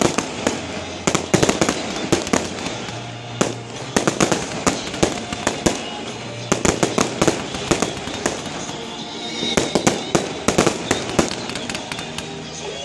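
Fireworks display: rapid volleys of sharp bangs and crackles from aerial shells, several a second, with short lulls between volleys. Music plays underneath.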